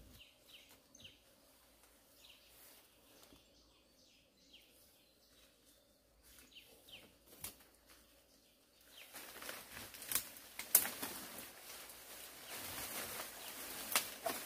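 Faint chirping, a series of short falling calls, like small birds calling. About nine seconds in it gives way to a louder, steady rustling with scattered crackles and clicks, like leaves or dry material being handled or walked through.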